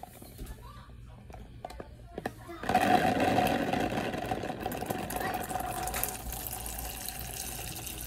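Water and Orbeez water beads pouring out of a glass jar into a plastic tub. A few light clicks come first; about three seconds in, a steady splashing pour starts, loudest at its start and slowly easing off.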